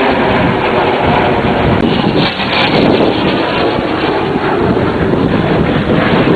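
Loud, steady aircraft engine noise, with wind buffeting the microphone.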